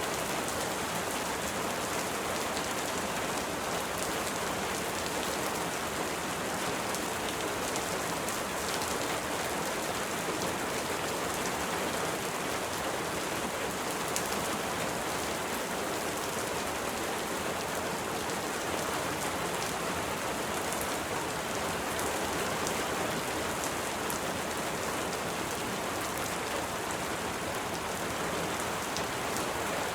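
Steady rain falling: an even, unbroken hiss with faint scattered drop ticks, no thunder.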